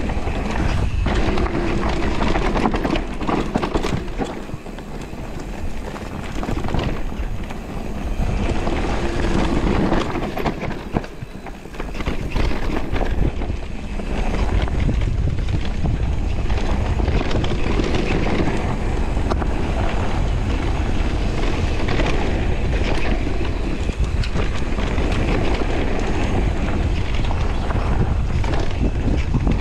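Wind buffeting the microphone, over the rolling noise of an electric mountain bike's tyres on a dirt and dry-leaf trail, with short rattles and knocks from the bike over bumps. The noise eases briefly twice in the first half, then runs steady.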